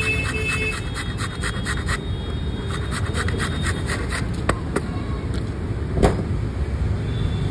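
Quick scraping strokes of a handheld metal box grater shredding vegetables, about five strokes a second in two runs over the first four seconds or so, over a steady low rumble of traffic. A single knock about six seconds in.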